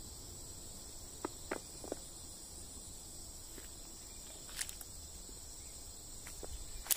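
A steady, high-pitched buzz from a chorus of forest insects, with a few scattered footsteps on a path.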